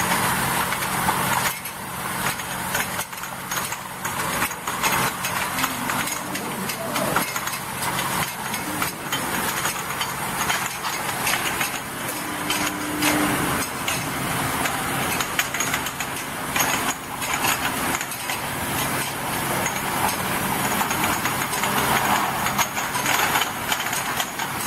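Bottle and vial washing machine running: a steady motor hum with continual rattling and clicking.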